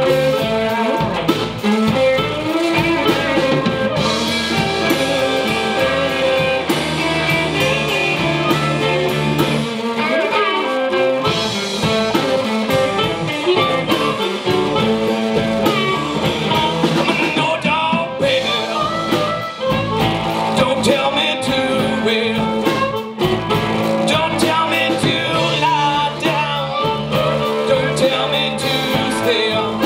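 A live blues band playing electric guitars over drums, loud and continuous.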